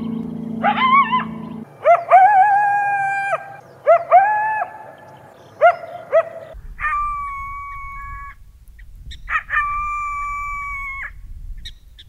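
Coyotes howling: a run of calls that each swoop up and then hold a steady pitch, some brief and some over a second long, mixed with a few quick yips.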